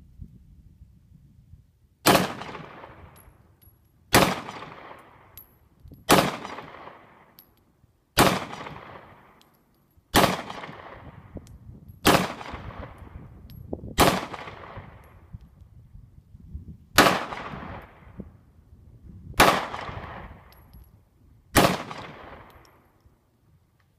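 A SCCY CPX-2 9mm pistol fired ten times in slow, deliberate single shots about two seconds apart, with a slightly longer pause before the last three. Each sharp report is followed by a fading echo lasting about a second.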